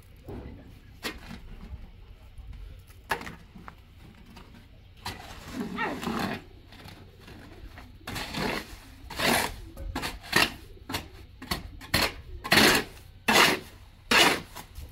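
A shovel scraping and slapping through wet cement mortar in a wooden mixing trough. The strokes are sparse and uneven at first, then about halfway through become a quick, regular run of loud scrapes, roughly one every 0.7 seconds.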